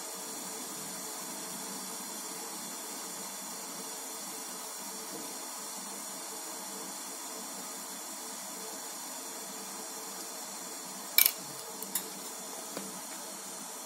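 Steady low hiss, then a sharp clack of hard plastic bottle caps being handled on a plastic tray near the end, with a softer click about a second later.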